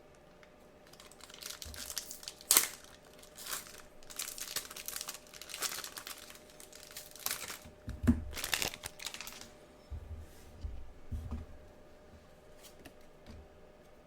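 A trading-card booster pack's wrapper crinkling and tearing as it is opened: a run of crackly rustles with one sharp rip about two and a half seconds in. The crinkling stops after about nine seconds, followed by a few dull bumps of handling.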